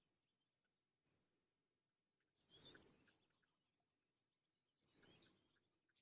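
Near silence: faint outdoor ambience with a steady thin high tone and scattered faint chirps, and two short soft noisy swells about two and a half and five seconds in, each fading over about a second.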